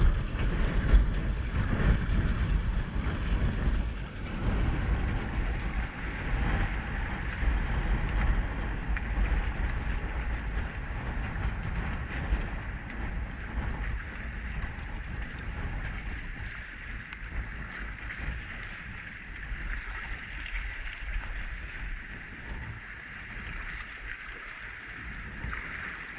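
Strong wind buffeting the microphone over choppy water washing and lapping against a kayak hull. The wind rumble is heaviest in the first half and eases later on.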